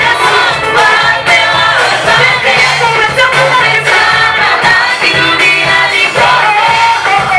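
A choir singing a Swahili gospel song with a steady bass line underneath.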